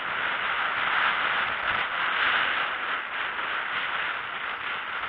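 Bicycle rolling fast downhill on a paved street: steady tyre noise on the pavement with the rattle of the bike.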